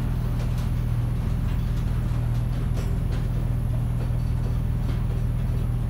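Covered hopper cars of a slow-moving freight train rolling through a grade crossing: a steady low rumble and hum, with a few faint clicks from the wheels.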